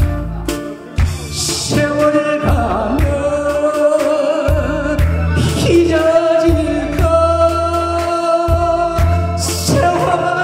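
Man singing a Korean trot song live into a microphone over a backing track with drums, holding a long note in the middle.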